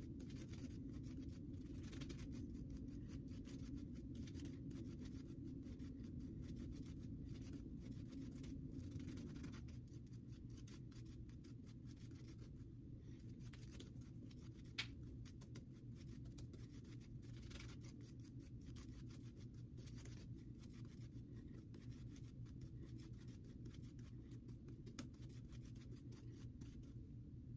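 Soft badger shaving brush swirling soap lather on the face: faint, irregular scratchy swishing strokes over a low steady room hum. This is face-lathering, working freshly added water into a lather that was not yet slick enough.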